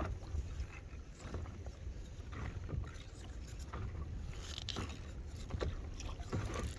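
Small waves lapping and splashing against an inflatable paddleboard, with scattered short splashes or knocks over a low steady rumble.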